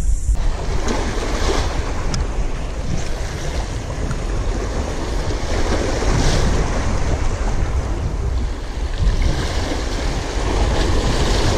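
Sea waves washing and splashing against the rocks of a stone jetty, surging a few times, with wind rumbling on the microphone.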